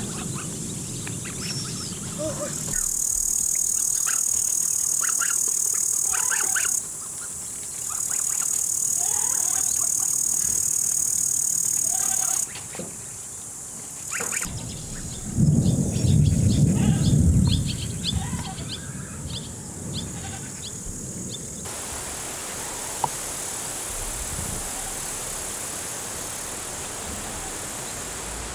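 Outdoor summer ambience: a high, steady insect trill in stretches, with short bird chirps scattered through. About halfway, a loud low rumble lasts a few seconds, and the last part is an even hiss of wind.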